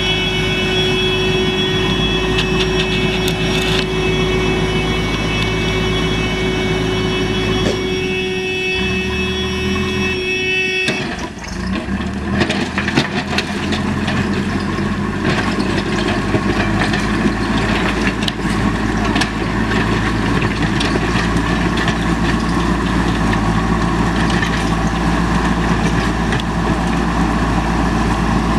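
Diesel engine of a JCB earthmoving machine running steadily while it works. About eleven seconds in the engine note changes abruptly, and light clanks and knocks come through over the engine after that.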